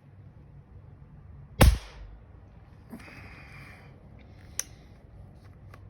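A single shot from a Stevens 1894 Favorite falling-block .22 rifle firing a CCI Quiet .22 Long Rifle round: one sharp crack about a second and a half in. A small sharp click follows about three seconds later.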